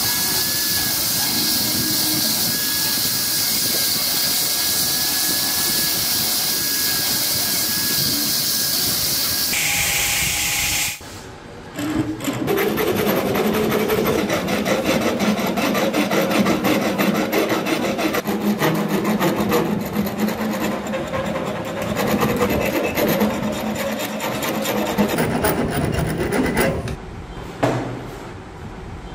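Belt grinder running with a steady hiss and a faint whine while a wooden handle is ground against its contact wheel; about eleven seconds in it cuts off. Then a hand file rasps back and forth across the edge of the wooden handle in quick strokes until near the end.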